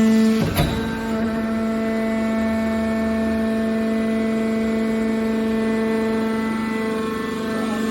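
Hydraulic car body baler running with a steady, pitched hum from its power unit, and one sharp metal clank about half a second in.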